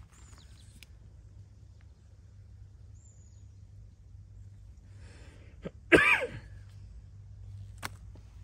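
A person coughs once, a sudden loud burst about six seconds in that falls in pitch, over faint background hum.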